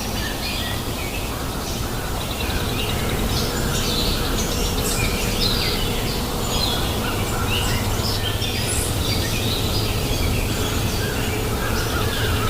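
Several small birds chirping and calling in quick, overlapping notes over the steady low rush of flowing river water.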